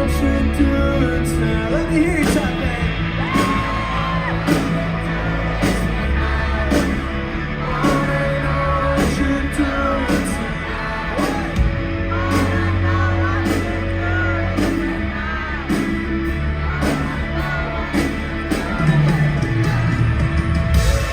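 Live band music: drums and a steady bass line under a singing voice whose lines bend up and down.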